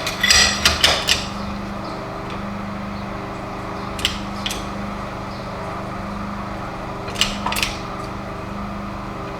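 Sharp metallic clicks and knocks from a small hand-operated press bearing down on a stuck vise tailpiece to force it out of its nut: a quick cluster in the first second, then single pairs about 4 and 7 seconds in. A steady low hum runs underneath.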